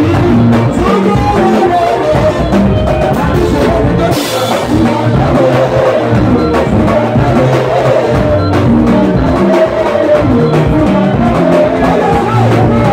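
Live Congolese band playing a sebene, the guitar-led dance section of Congolese rumba: electric guitar lines over bass guitar and drum kit, with a steady beat.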